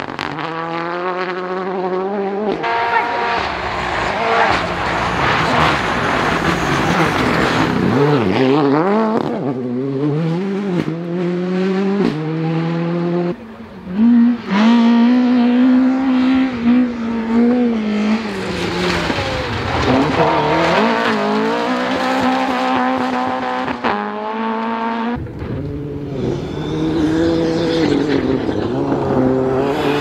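Rally cars passing one after another at full throttle on a loose gravel stage, engines revving hard and rising and falling through gear changes, with tyre and gravel noise underneath. The sound switches abruptly from one car to the next about 2.5, 13 and 25 seconds in.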